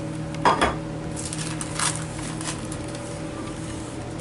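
A glass pie dish being handled and set down on a kitchen counter: one loud knock about half a second in, then a run of lighter clinks and taps, over a steady low hum.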